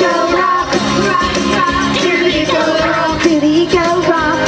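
Upbeat children's pop song with a singing voice and a steady drum beat.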